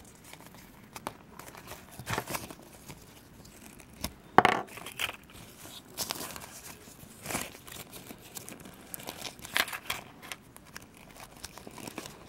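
Intermittent crinkling and rustling as the thin sheet wings and small plastic parts of a Kinder Surprise toy glider are handled and fitted together, in short bursts with the loudest crackle about four and a half seconds in.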